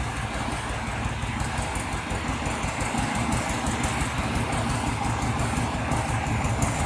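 Small tractor engine running steadily with a fast low chugging.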